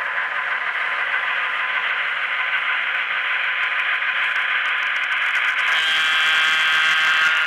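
EMD 567 diesel engine sound from the LokSound Select decoders in HO-scale Santa Fe F3 locomotives, played through their tiny onboard speakers as a steady, thin, hissy engine drone while the model rolls along the track. Near the end, a higher pitched tone joins for about a second and a half.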